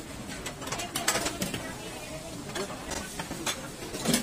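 Clatter at a cafeteria serving line: serving tongs and plates clicking and knocking against stainless-steel steam trays, a run of short irregular clinks with a louder knock near the end.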